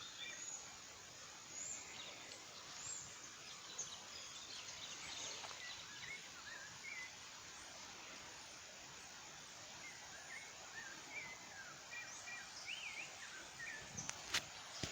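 Many short bird chirps scattered over a steady, even hiss of outdoor noise. A few sharp knocks come near the end.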